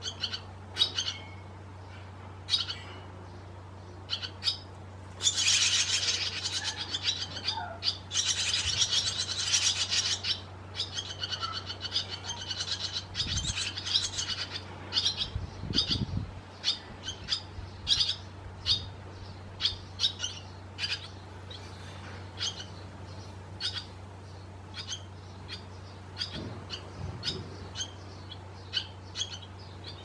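Young barn swallows at the nest giving short, repeated high chirps, breaking into several seconds of dense, rapid twittering about five seconds in before settling back to single chirps. A steady low hum runs underneath, with a few soft low thumps.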